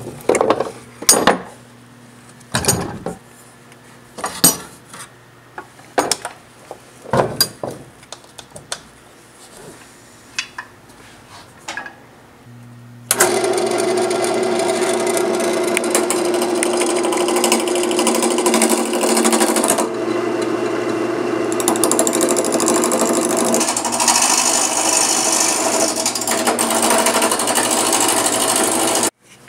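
Scattered knocks and clicks as turning tools are handled and taken from a wooden rack, then about 13 s in a wood lathe is switched on and runs steadily with a motor hum. A scraping hiss grows over the last several seconds as a turning gouge cuts the spinning wood blank, and the sound cuts off suddenly just before the end.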